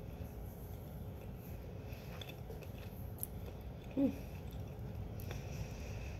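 A person chewing a bite of crisp hazelnut-cream wafer with peanut pieces: faint crunching and mouth sounds, with a short falling hum about four seconds in.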